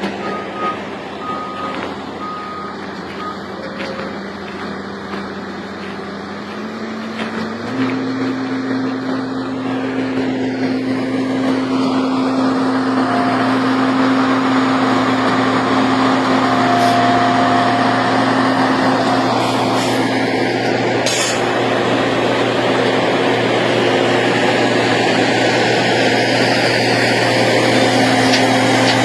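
Heavy diesel road-construction machine running, with a reversing alarm beeping in the first few seconds. About seven seconds in, the engine note steps up and gets louder, then holds steady at the higher speed.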